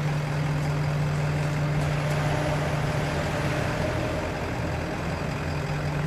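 A machine running steadily with a constant low hum that does not change in pitch or level.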